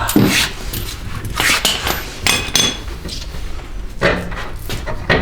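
Hammer striking metal in a series of irregular sharp blows, driving out a rear strut bolt on the suspension.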